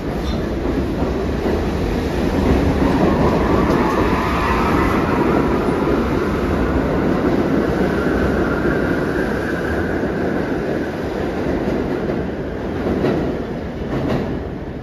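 A New York City subway train on the IRT Lexington Avenue line moving along the platform: a loud rumble of wheels on rail, with a high squealing tone over the middle stretch.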